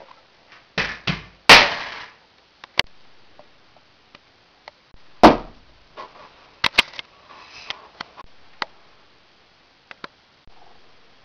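A series of sharp knocks and thuds, about half a dozen, with quiet gaps between them. The loudest comes about a second and a half in and another about five seconds in.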